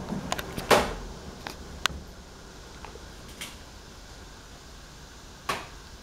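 Windsor box fan slowing down after its control knob is turned, its running noise fading over the first two seconds to a low, steady hiss. A few sharp clicks and knocks, the loudest about a second in and another near the end.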